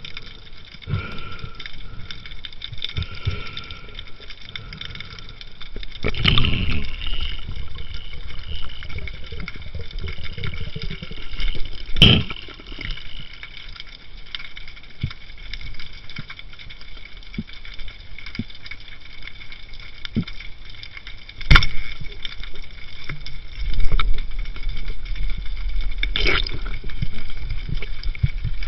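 Underwater sound as heard by a camera in a waterproof housing: muffled water movement and a faint steady whine, with two sharp knocks on the housing and a low rumble of moving water near the end.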